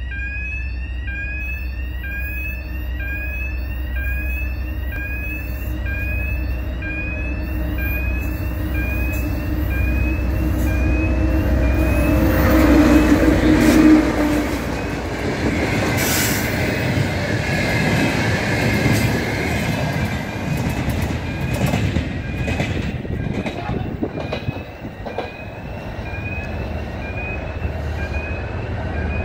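TEP70BS diesel passenger locomotive approaching and passing: a deep engine drone grows louder to a peak about 13 seconds in, then wheel and rail clatter as it goes by. A repeating rising electronic chirp, about one every three-quarters of a second, sounds except while the train is passing.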